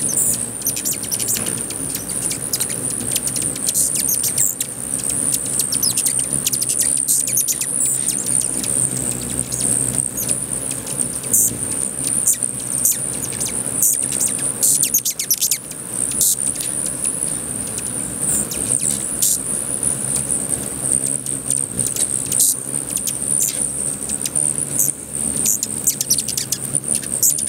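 A crowd of hummingbirds swarming a feeder: a dense, continuous whir of wings with frequent sharp chirps and chips throughout, over a steady high-pitched whine.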